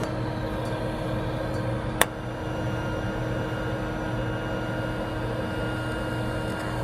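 Welding machine giving a steady electrical hum with a few fixed tones, broken by a single sharp click about two seconds in.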